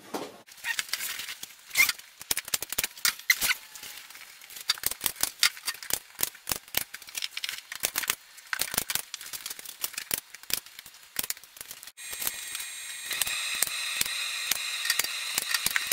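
Hand-squeezed staple gun firing again and again at an irregular pace, sharp clacking snaps as staples are driven through a vinyl seat cover into a plastic seat base. About twelve seconds in, a steady hum with a high whine comes in underneath the snaps.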